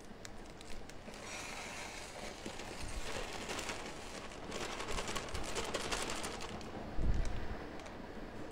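Plastic bag of shredded hash brown potatoes crinkling while the shreds pour out into a slow cooker's crock, a dense crackle that is thickest about five to six seconds in. A dull thump about seven seconds in is the loudest sound.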